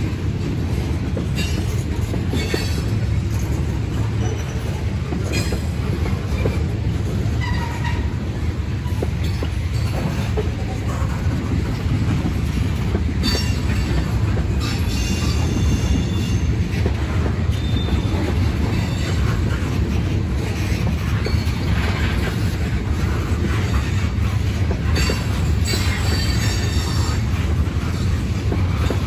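A train rolling past with a steady, heavy rumble of wheels on the rails. Short, high wheel squeals break in now and then.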